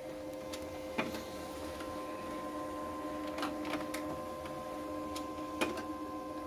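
Automatic document feeder of an all-in-one printer-scanner pulling paper pages through for scanning, feeding normally: a steady mechanical hum with a few sharp clicks as the sheets go through.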